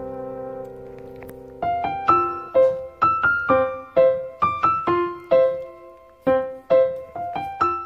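Background piano music: a held chord fades away, then a gentle melody of single struck notes begins about a second and a half in.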